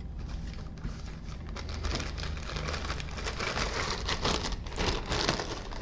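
Model-kit packaging being handled, a dense crinkling rustle of paper and wrapping that gets heavier about two seconds in.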